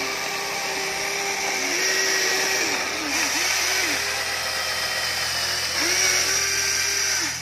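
Radio-controlled toy excavator's small electric motors whirring as its boom, arm and bucket move. The whine dips and comes back up in pitch several times as the motors start and stop.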